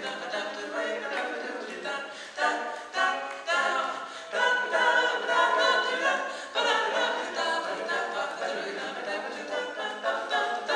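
Male vocal quartet singing a cappella in four-part harmony. A run of short, sharply attacked chords comes between about two and four seconds in, followed by longer held chords.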